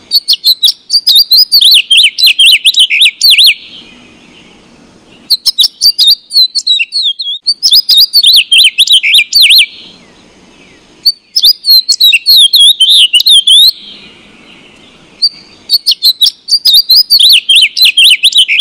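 House sparrows chirping: rapid, shrill cheeps in loud bouts of two to four seconds, with short pauses between bouts in which a faint low background rumble is heard.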